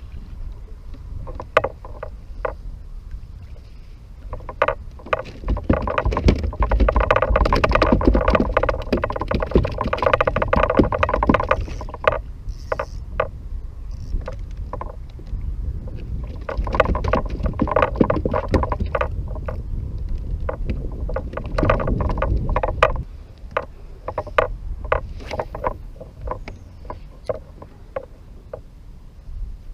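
Handling noise on a fishing kayak: scattered knocks and clicks against the hull, with two louder stretches of steady whirring and rattling, each lasting several seconds.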